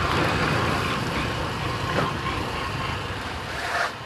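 Vehicle moving along a rough dirt road: a steady rush of wind and tyre noise, with short knocks from bumps about two seconds in and again near the end.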